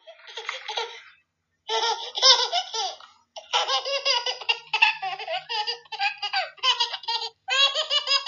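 A baby laughing and giggling in high-pitched bursts. A short giggle comes first, then a brief pause, and from about a second and a half in a longer run of laughter follows with short breaks.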